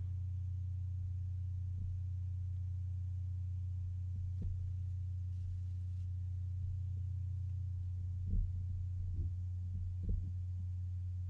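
Steady low hum, with a few faint soft knocks, mostly in the last few seconds.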